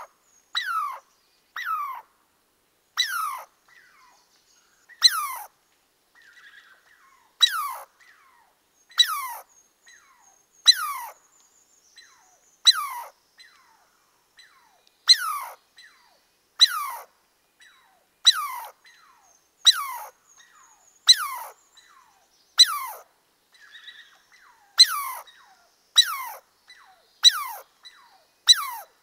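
An animal's high-pitched call, repeated about every one and a half to two seconds: each call is short, starts sharply and slides quickly down in pitch.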